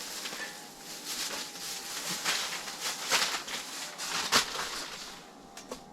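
Rustling and handling noises, uneven and scratchy, with a few sharper strokes about three and four seconds in.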